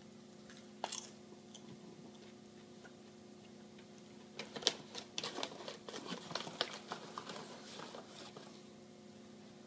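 Someone chewing a mouthful of microwave popcorn, crunching in a quick run of crackly bites for about four seconds from roughly four seconds in, after a single click about a second in.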